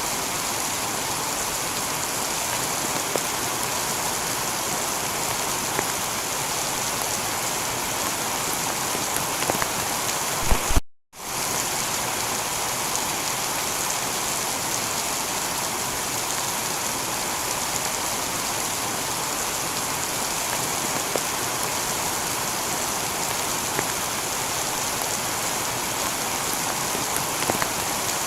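Heavy rain falling steadily on a tiled roof, an even hiss of drops. About eleven seconds in the rain jumps briefly louder and cuts out for a split second before carrying on.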